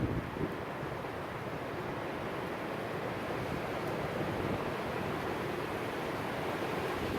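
Strong wind blowing, a steady rushing noise that holds even throughout, without gusts hitting the microphone.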